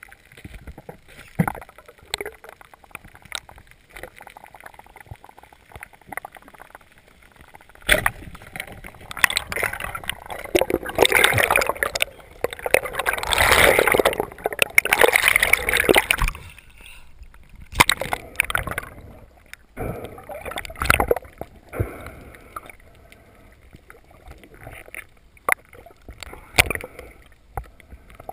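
Water noise on an underwater camera during a spearfishing dive, with scattered knocks. A loud stretch of bubbling and sloshing fills the middle as the camera nears the surface among bubbles.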